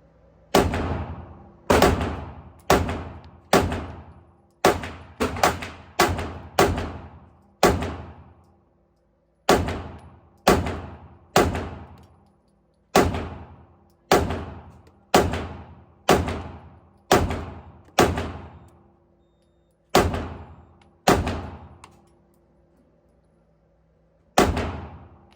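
Gunfire at an indoor shooting range: about twenty single shots fired at a steady pace of roughly one a second, each ending in a reverberant tail, with two short pauses between strings.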